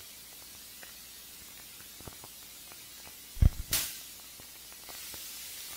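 Faint steady hiss of a recording's background noise, with scattered faint clicks and a brief thump and crackle about three and a half seconds in.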